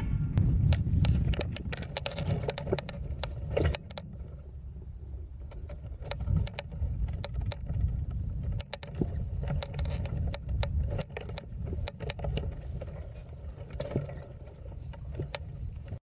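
Wind rumbling on the microphone of a camera mounted on a hang glider, loudest in the first couple of seconds while the glider is still flying, then weaker. Throughout, many light clicks and a metallic jingling rattle come from the glider's frame and fittings as it touches down and is carried over grass.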